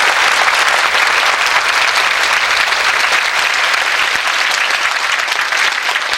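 Hall audience applauding, dense and steady, beginning to thin near the end.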